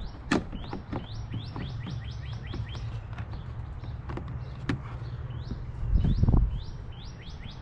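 A small bird chirping over and over, quick descending chirps several a second in short runs. Over it come a few sharp clicks and a louder dull knock about six seconds in, with a low steady hum underneath.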